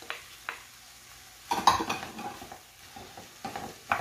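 A couple of sharp taps, then a louder clatter about a second and a half in, then a wooden spoon stirring and scraping chopped vegetables in a pot, with more knocks against the pot near the end.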